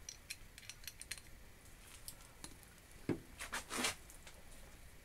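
Light metallic clicks and clinks from an Allen key and the bolts of a small guillotine being tightened, with a louder knock about three seconds in and a short scrape just after.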